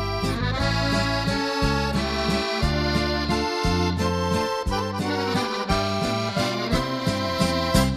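Background music led by an accordion, playing rhythmic chords over a bass line.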